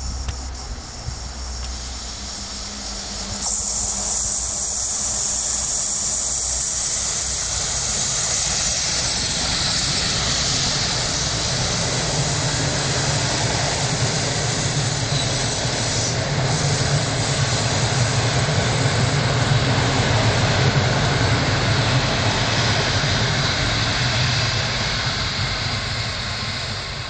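Electric-locomotive-hauled passenger train approaching and passing at speed: a steady rush and rumble of wheels on rails and carriages that swells to its loudest about twenty seconds in and begins to fade near the end.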